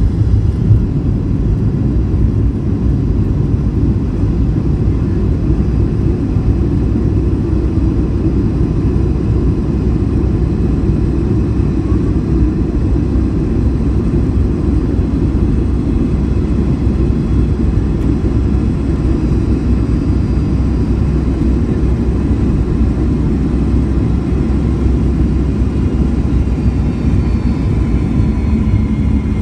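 Cabin noise of a McDonnell Douglas MD-83 airliner rolling on the ground after landing: a steady low rumble from the wheels, airframe and rear-mounted jet engines, with faint engine whine above it that shifts in pitch near the end.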